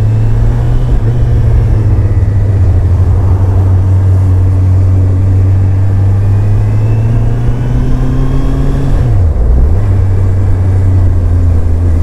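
Motorcycle engine running steadily while riding on the road. About nine seconds in, the engine note dips briefly, then settles back to its steady pitch.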